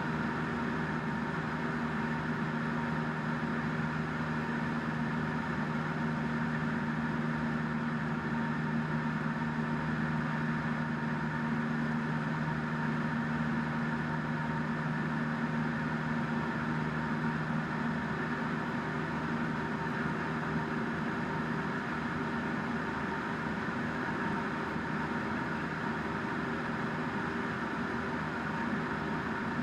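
Piston engine and propeller of a single-engine light aircraft in flight, heard inside the cabin as a steady drone. Its lowest tone eases about two-thirds of the way through.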